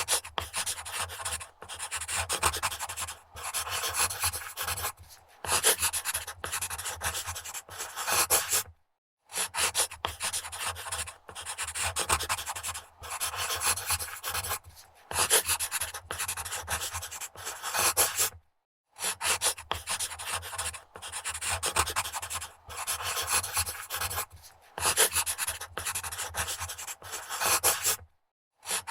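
Pencil scribbling quickly on paper on a wood desk: runs of rapid scratchy strokes, broken by a brief complete silence about every nine to ten seconds.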